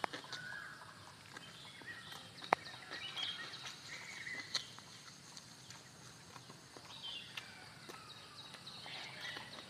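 Mouth sounds of a person eating an egg roll: wet chewing and lip-smacking with scattered sharp clicks, the loudest about two and a half seconds in. Birds chirp briefly in the background.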